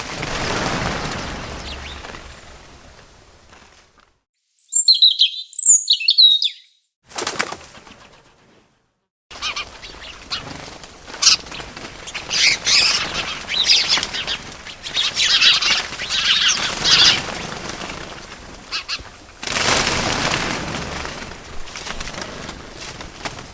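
Bird sounds: swells of wing flapping, a few sharp, high chirps on their own a few seconds in, then a long run of twittering chirps over a hissy background, with another swell of wingbeats near the end.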